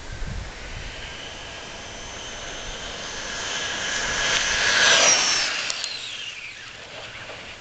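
Traxxas Rustler radio-controlled truck, geared 31/76 on a 3S battery, making a high-speed pass: the high whine of its electric motor and gears grows louder as it approaches, peaks about five seconds in as it goes by, then drops in pitch and fades away.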